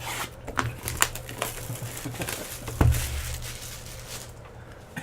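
Crinkling, crackling and tearing of trading-card packaging being opened by hand, with a dull thump about three seconds in over a steady low hum.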